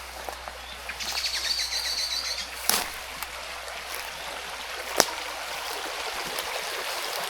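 Forest ambience: a bird gives a fast trill lasting about a second and a half over a steady hiss like running water, with two sharp clicks, the louder one about five seconds in.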